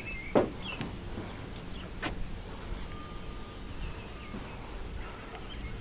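A sharp knock about half a second in and a second, fainter one about two seconds later, over birds chirping and a low steady rumble.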